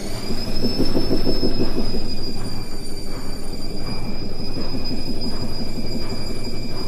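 Indesit IWE 6125 washing machine spinning: a high motor whine finishes rising about half a second in, then holds steady over a loud rumbling rattle from the drum. The owner counts this as a bad sound.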